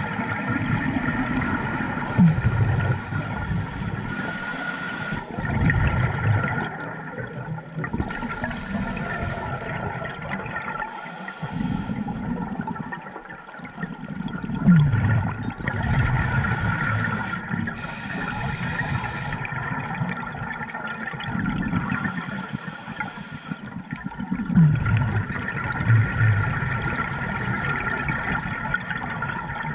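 Scuba diver breathing underwater through a regulator: a hissing inhale alternating with a bubbling, gurgling exhale, about one breath every four to five seconds.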